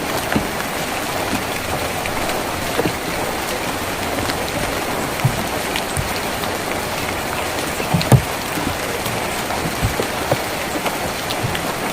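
Steady rain on a tin roof: an even hiss with scattered heavier drops knocking on the metal, the loudest knock about eight seconds in.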